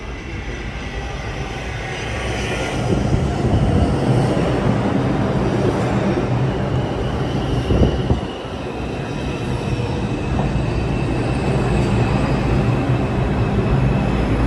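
R142 subway train pulling into the station and slowing alongside the platform: a steady rumble of wheels on rails with a high whine, growing louder as the cars arrive, and one sharp knock about eight seconds in.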